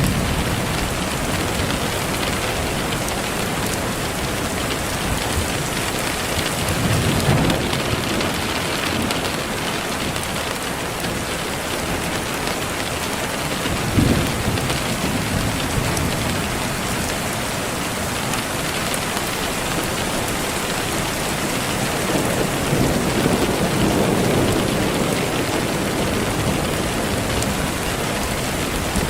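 Steady heavy rain, with low thunder rumbles swelling a few times and a short sharp crack about halfway through.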